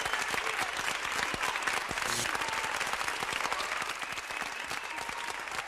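Crowd applause: dense, steady clapping with faint voices mixed in, easing off slightly toward the end.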